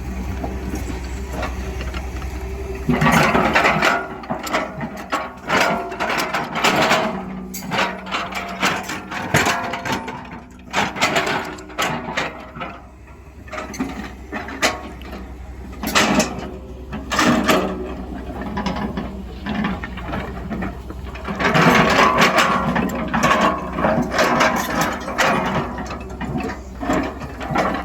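Excavator at work: its diesel engine runs steadily, then from about three seconds in irregular metallic clanks and scraping rattles keep breaking in over the engine.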